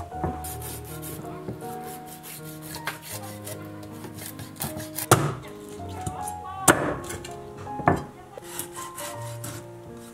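Cleaver scraping and cutting through a fish on a wooden chopping board, with three sharp chops of the blade into the board in the second half. Soft background music plays underneath.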